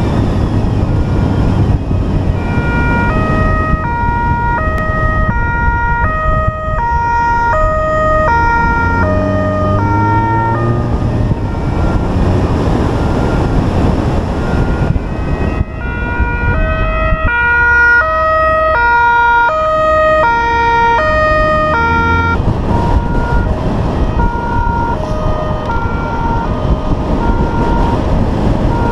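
Italian police two-tone siren stepping back and forth between two pitches, over the steady noise of a patrol car's engine and tyres. About a third of the way in, the engine revs up with a rising pitch. The siren fades for a few seconds in the middle and is fainter near the end.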